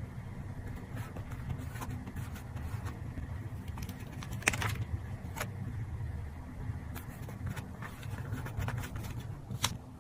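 Paper and collage materials being handled for a journal collage: scattered light taps, rustles and scrapes, with a sharper click about four and a half seconds in and another near the end, over a steady low hum.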